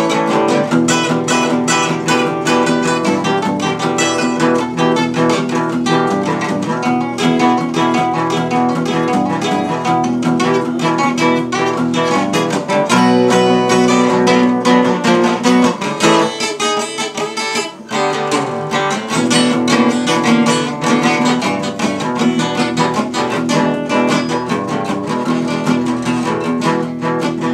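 Two acoustic guitars playing an instrumental break together, strummed and picked. The playing thins out briefly about two-thirds of the way through, then comes back in full.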